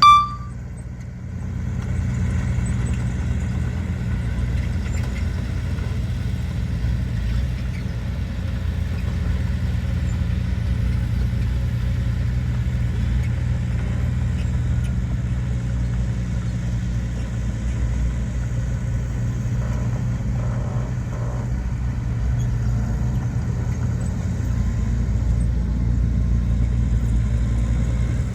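Heavy diesel earthmoving machinery running steadily, a deep, even engine drone that holds throughout. A short, loud, high-pitched tone sounds right at the start.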